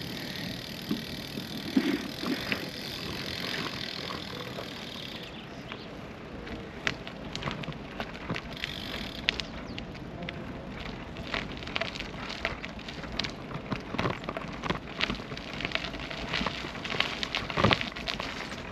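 Brompton P-Line folding bike being ridden over rough ground: a steady tyre hiss with frequent small clicks, rattles and crackles.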